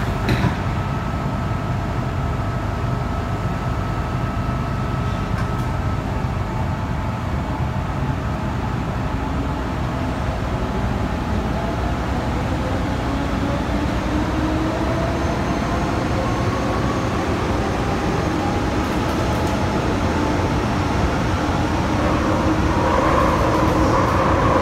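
Metro-Cammell electric multiple unit pulling away and running through the tunnel, heard from inside the car: a steady rumble of wheels on rail with a knock right at the start, and from about halfway the traction motors' whine slowly rising in pitch as the train gathers speed.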